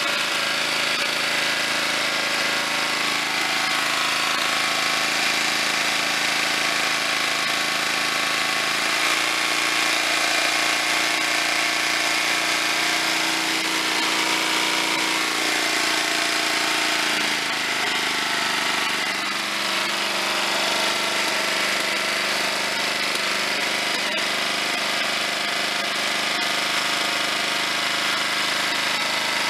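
1995 Briggs & Stratton 12 HP Power Built engine on a Snapper rear-engine rider mower running steadily, its note shifting slightly about nine seconds in and again around eighteen seconds. It is running through a muffler whose baffles the owner believes are gone.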